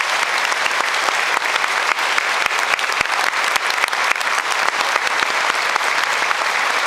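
A large audience applauding steadily, a dense patter of many hands, with single claps from someone close by standing out.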